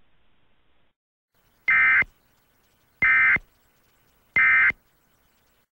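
Three short, identical bursts of Emergency Alert System SAME digital data tones, evenly spaced a little over a second apart: the end-of-message code that closes an EAS warning.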